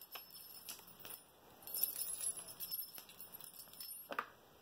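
Small jingle bell on a feather wand cat toy jingling in faint, irregular shakes as the toy is waved, loudest about two seconds in.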